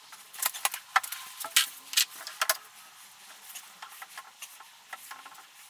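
Scattered sharp clicks and light clatter of small hard parts being handled, several loud ones in the first two and a half seconds and fainter ones after.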